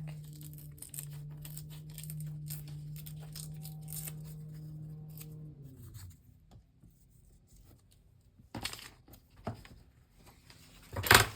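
Paper rustling and crinkling as dictionary pages are handled and turned, with a louder rustle near the end. A steady low hum runs under it for the first half, then drops in pitch and stops about six seconds in.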